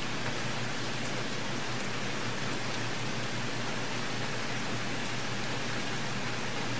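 Steady, even hiss with a faint low hum underneath: room tone and microphone noise, with no other sound.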